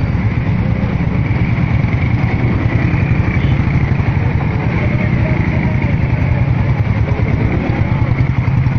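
Motorcycle engines running slowly and idling close by in a crawling queue of bikes, a steady low engine note with no break.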